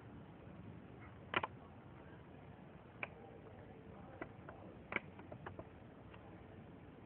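A handful of short, sharp clicks and taps over a faint steady hiss: the loudest a little over a second in, then single ones spaced out and a quick cluster about five seconds in.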